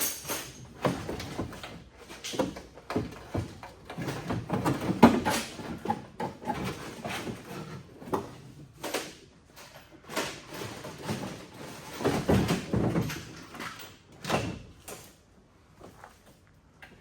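Hand tools and loosened car parts knocking, clattering and scraping in irregular bursts during disassembly, with two longer scraping stretches about four and twelve seconds in.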